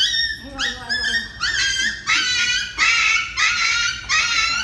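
A dog whining and yelping in a rapid series of short, high-pitched cries, about two a second, some sliding up or down in pitch.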